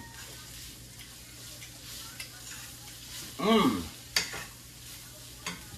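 Ground meat sizzling in a skillet as it is stirred with a spatula, with a single sharp tap about four seconds in.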